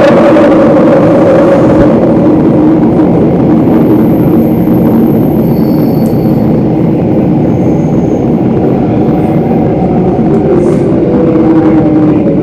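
Singapore MRT Downtown Line train running through a tunnel, heard from inside the carriage: a loud, steady rumble of wheels on rail with a humming electric traction tone that shifts in pitch about eleven seconds in.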